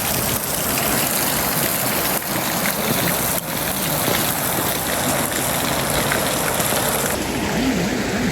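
Water pouring from an overflow and splashing into a stream: a steady, even rush.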